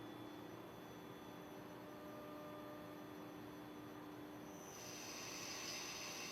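Faint, steady machine hum with a few steady tones; a little before the end a hiss with a high whine comes in.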